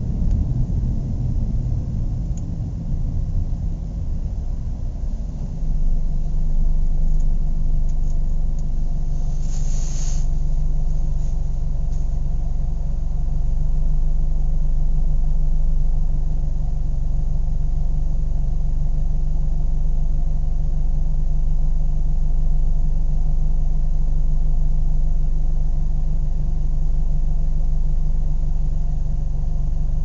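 Car engine idling: unsettled for the first few seconds, then about five seconds in it steadies into an even, slightly louder idle that holds to the end.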